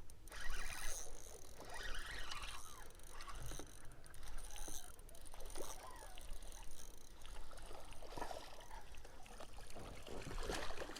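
Steady low rumble of wind on the microphone with scattered small knocks and faint water sounds around a fishing boat.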